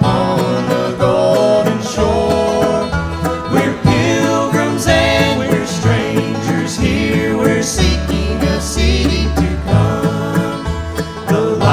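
Bluegrass gospel band playing live: fiddle, mandolin, acoustic guitars, upright bass and banjo together.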